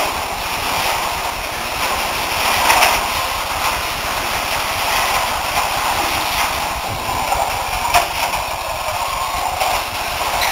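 Carrera Servo slot cars running on plastic track: the small electric motors whir and the cars rattle along the slots, with a couple of sharp clicks.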